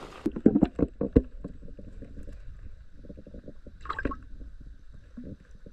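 Shallow creek water splashing and gurgling as a hand dips a bluegill into it to release it, heard through a camera held at the waterline, in a quick run of splashes at the start and smaller sloshes after, with a brighter splash about four seconds in.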